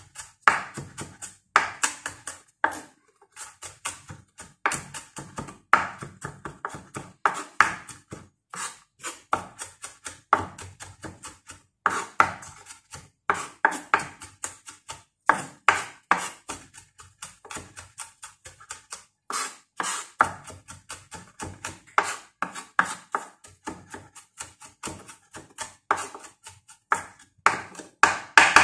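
Kitchen knife mincing garlic on a wooden cutting board: quick runs of sharp knocks of the blade on the wood, with brief pauses between runs.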